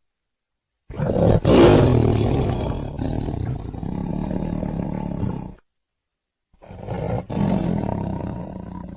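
Tiger roaring: one long roar of about four and a half seconds, loudest at its start, then after a second of dead silence a second roar that is cut off abruptly at the end.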